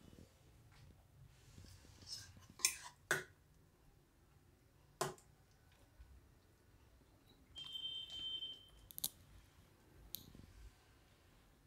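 A few faint sharp clicks and taps, scattered: two close together about three seconds in, one at five seconds, and more near nine and ten seconds. There is also a brief high squeak lasting about a second, just before the click near nine seconds.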